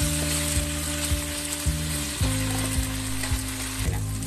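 Strips of raw tofu frying and sizzling in hot oil in a wok, turned now and then with a wooden spatula, with background music holding steady chords underneath.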